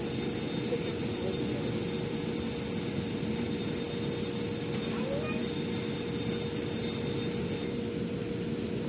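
Metro train heard from inside the car: a steady rumble of the train running, with a constant hum.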